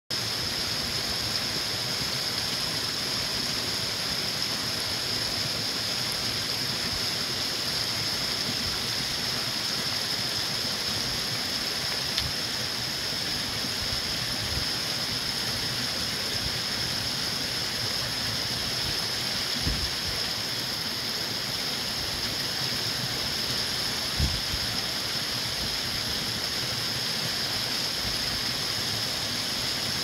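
Small rocky forest brook babbling steadily, water rushing and splashing over stones and little cascades. Three brief low bumps break in partway through.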